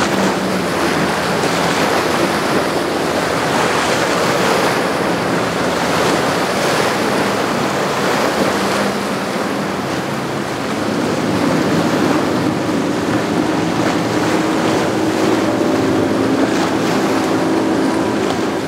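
Rough inlet water churning and breaking, with wind buffeting the microphone, and the steady low hum of a Caravelle 17 EBO bowrider's outboard motor underneath.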